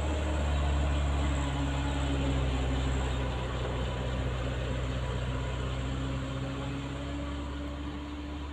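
Diesel truck engine running with a steady low drone, slowly fading over the last few seconds.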